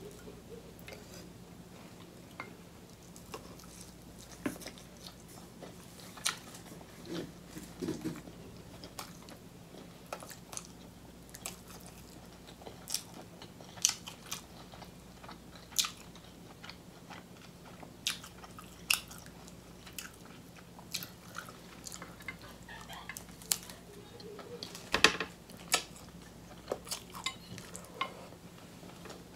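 Close-miked chewing of king crab meat and noodles, with many short sharp wet clicks and smacks scattered throughout; the loudest come about 25 seconds in.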